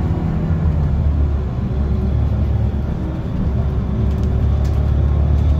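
Mercedes-Benz OC500LE city bus under way with its six-cylinder turbocharged CNG engine, heard from inside the passenger cabin as a steady low rumble mixed with road noise.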